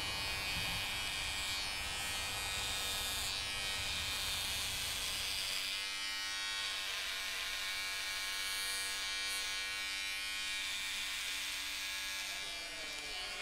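Electric sheep-shearing clippers running with a steady buzzing hum.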